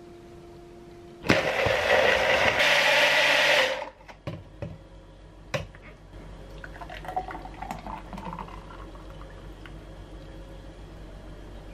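Personal bottle blender running for about two and a half seconds as it blends cabbage and water into a smoothie, its sound changing partway through. After it stops come a few clicks as the bottle is taken off the motor base, then the smoothie pouring into a glass.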